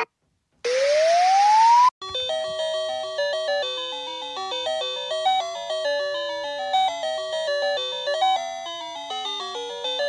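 A brief rising whistle-like tone over a hiss, then, from about two seconds in, a light melody of chiming, bell-like notes played as closing music.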